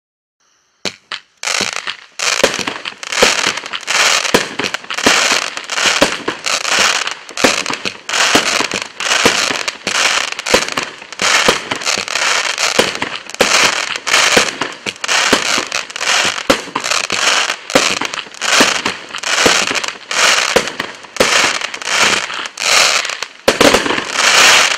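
Bright Star Prime Rain 25-shot, 500-gram consumer fireworks cake firing its shots one after another, about one a second. Each shot is sharp and loud, with dense noise between the shots. It starts about a second in.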